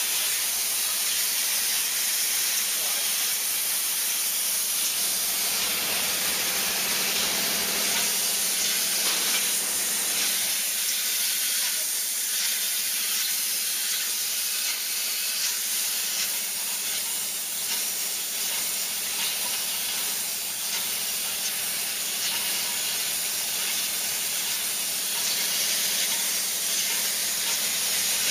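Flip-top cap closing machine running: a steady hiss with a low hum underneath and faint, rapid clicking.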